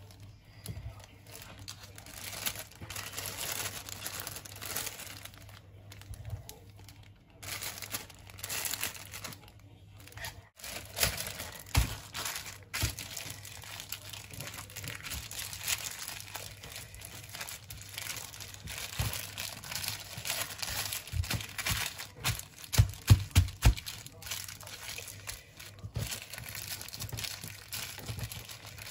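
Clear plastic wrap crinkling and rustling as a roll of minced pork is wrapped and rolled in it by gloved hands. There is a quick run of soft thumps about three-quarters of the way through.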